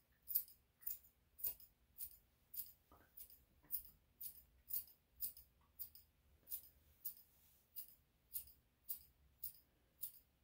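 Dog-grooming scissors snipping through a dog's coat. The blades close in a steady run of light, crisp metallic snips, about two a second.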